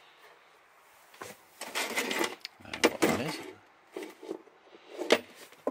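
Rustling and scraping as cables are handled inside a wooden cupboard, with a few sharp clicks, the last near the end.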